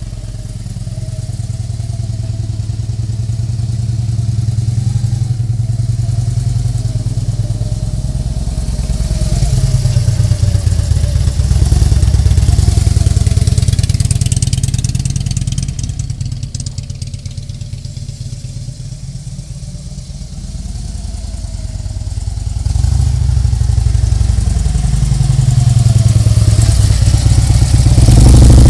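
Harley-Davidson V-twin motorcycle engine running on the move, its pitch rising and falling as it speeds up and slows down. It is quieter for a few seconds past the middle and loudest near the end.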